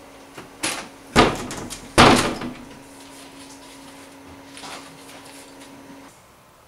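An apartment's front door being shut, making a few sharp knocks, the loudest about two seconds in. A faint steady hum follows.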